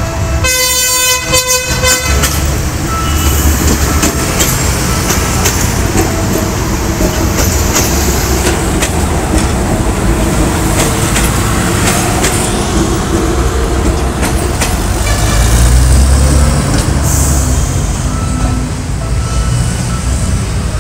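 Philippine National Railways train sounding a horn blast at the start, then running with a steady low rumble and scattered sharp clicks, growing loudest about fifteen seconds in.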